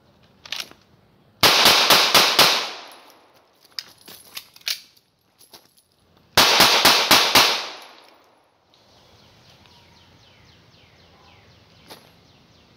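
HK P30L pistol fired in two rapid strings of five shots, each string about a second long with the shots ringing out after it. Between the strings come a few sharp metallic clicks and clacks of a magazine reload.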